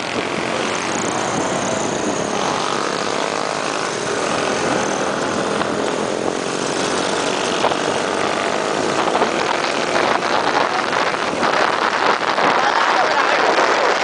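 Motorcycle engine running while riding, with wind rushing over the microphone; the wind buffeting grows louder and choppier over the last few seconds.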